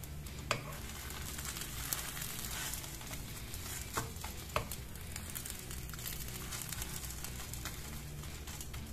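Egg pancake sizzling steadily in a nonstick frying pan as a wooden spatula turns and rolls it, with four light knocks of the spatula against the pan.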